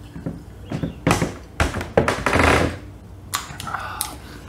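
Two men breathing out hard after swallowing a shot of strong liquor, then small glass mason-jar mugs set down on a wooden table with a few sharp taps near the end.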